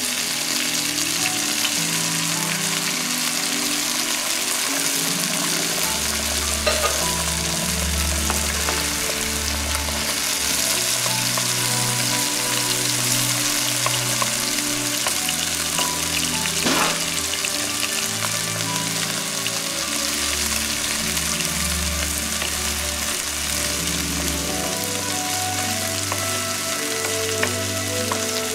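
Chicken pieces frying in hot oil in a nonstick pan, a steady sizzle, while a wooden spoon stirs and scrambles egg in among them, with a couple of brief knocks.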